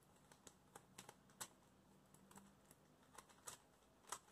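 Faint, irregular small plastic clicks and taps, about a dozen: a Lego-studded puzzle cube being handled and a Lego minifigure being fitted onto its studs.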